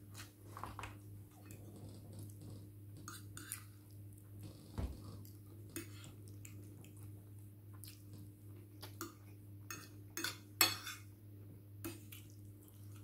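Cutlery clinking and scraping against dishes during a meal: scattered short, sharp clicks, with the loudest cluster about three-quarters through, over a steady low hum.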